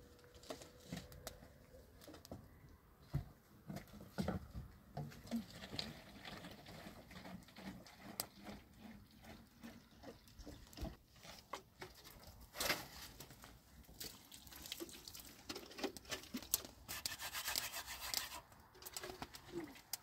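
Irregular handling noises: scattered knocks, scrapes and rustles as plastic water containers and a plastic bag are moved about, with a few short bursts of hiss, the longest near the end.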